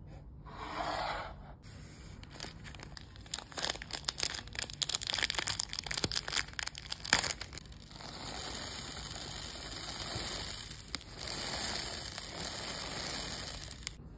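Small clear abacus beads poured from a plastic zip bag onto a hard tabletop: first a quick crinkle of the bag, then a patter of many separate clicks as beads drop and scatter, and from about eight seconds a steady rushing hiss as the beads stream out together.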